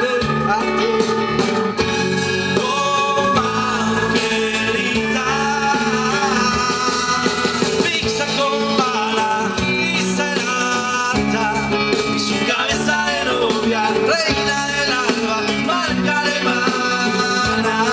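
A live rock band is playing, with drums, electric guitar and keyboard, and a man singing over an acoustic guitar.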